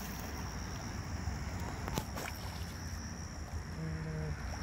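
Lakeside outdoor ambience: a steady low rumble under a thin, steady high-pitched drone, with one sharp click about two seconds in and a brief voice near the end.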